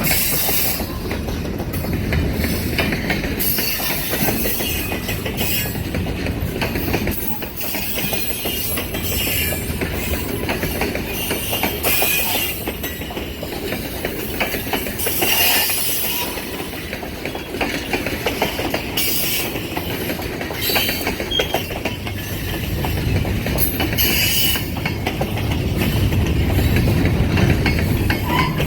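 Freight train cars rolling along the track: a steady rumble and clatter of wheels on the rails, with several short high-pitched bursts of wheel squeal.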